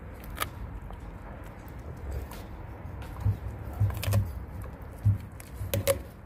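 Adult Lycan Shepherd chewing a frozen whole raw golden pompano, the fish and its bones crunching with irregular sharp cracks every second or two.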